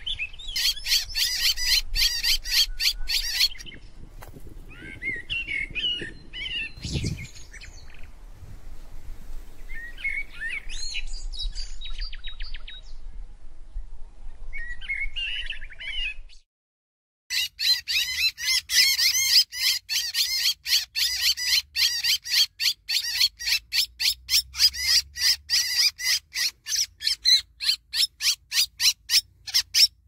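Hand-held kestrel giving a fast run of sharp, shrill calls, then scattered calls. After a short break, a captured bird keeps up a long fast series of sharp calls, about three a second.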